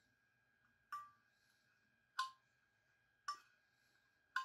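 Four light metallic clinks about a second apart, each with a brief ringing, from small metal hardware being handled against the aluminium enclosure, over a faint steady high tone.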